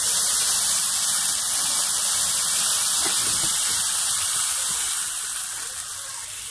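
A hot wok of sautéed bitter melon hissing and sizzling loudly as hot water added to it boils against the pan, dying down near the end.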